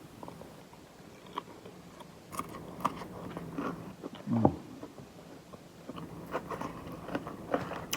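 A person chewing a crispy chicken salad close to the microphone: scattered crunches and mouth clicks, with a short hum about four and a half seconds in.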